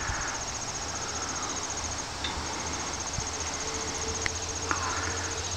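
High-pitched insect call: a fast, evenly pulsed trill that runs steadily, with a short break about two seconds in.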